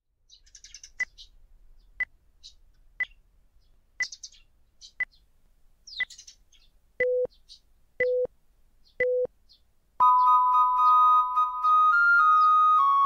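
Clock ticking once a second while small birds chirp. Three short beeps about a second apart follow, time-signal style, and then a long, louder, higher tone starts at about ten seconds and changes pitch near the end.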